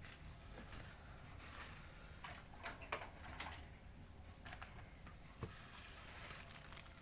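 Faint, scattered rustling and light clicks of packaging being handled.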